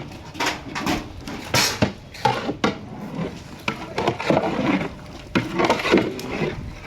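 Irregular knocks, clatter and scraping of metal cooking utensils against large cooking pots.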